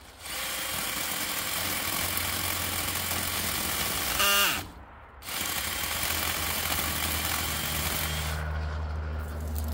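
Cordless drill driving a drill-powered mini chainsaw attachment, its chain cutting into a small tree trunk. About four seconds in the motor winds down with a falling whine and stops for a moment, then starts again and keeps cutting. Near the end the chain noise thins to a steadier motor hum.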